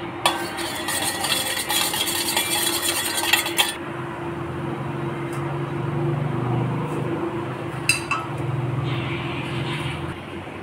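Steel spoon stirring liquid in a stainless-steel bowl, clinking rapidly against the sides for about three and a half seconds. Then a low steady hum continues, with a single click near the end.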